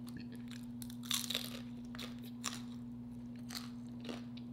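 Close-miked chewing and crunching of chili cheese nachos, the tortilla chips crackling in the mouth: a cluster of crunches about a second in, then single crunches every second or so. A faint steady hum runs underneath.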